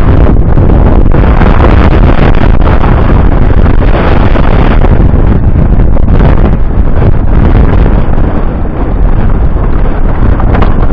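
Strong wind blowing hard across the microphone: loud, continuous buffeting rumble that eases slightly about eight seconds in.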